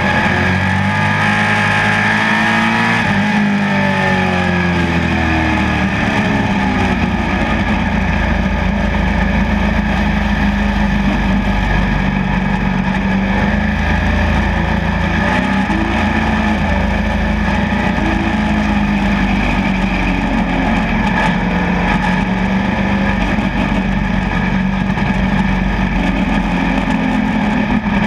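Pro stock dirt-track race car's engine running hard at racing speed, heard onboard. Its pitch rises and falls through the first few seconds as the throttle comes off and goes back on, then holds steady.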